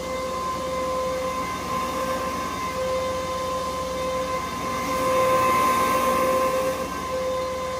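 Carpet-cleaning machine running with a steady whine and hiss. A lower tone cuts out briefly about every second and a half.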